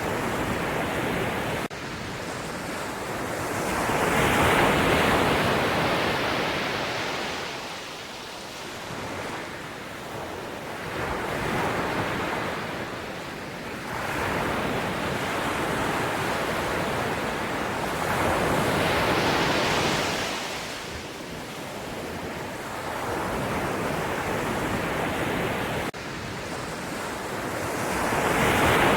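Ocean waves breaking and washing ashore, rising and falling in slow surges every several seconds, with two abrupt jumps in level where the recording is spliced.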